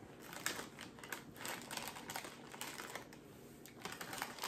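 Plastic snack bag crinkling and rustling in quick crackly clicks as hands reach into it, in two spells, the first about two and a half seconds long.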